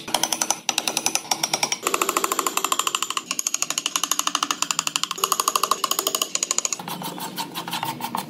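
Power carving chisel hammering into wood in fast, even taps, about ten a second, with a ringing pitch that shifts every second or so as the cut moves.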